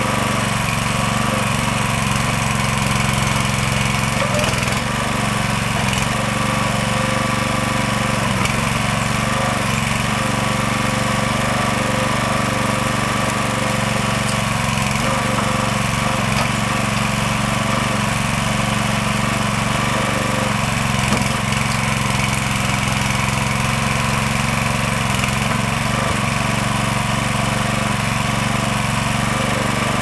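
Small gasoline engine of a DR towable backhoe running steadily, driving the hydraulics as the bucket digs out around a small tree.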